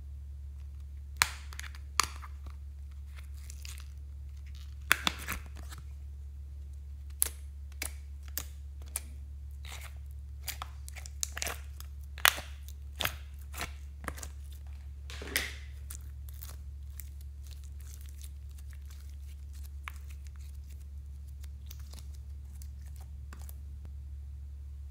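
Thin plastic heart-shaped slime tray crackling and clicking as it is flexed, with slime peeling away from the plastic as it is emptied into a glass dish. The crackles come as scattered sharp clicks, thinning out in the last third, over a steady low hum.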